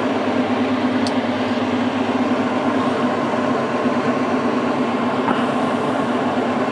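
Steady hum of a kitchen extractor hood fan running.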